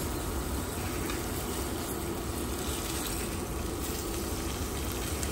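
Pieces of pickled Indian mackerel coated in red chilli masala, frying in hot oil in a pan with a steady sizzle.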